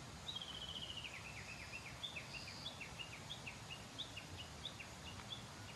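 A songbird singing: a quick falling trill, then a long run of short, sharp chirps at about four a second, over faint outdoor background rumble.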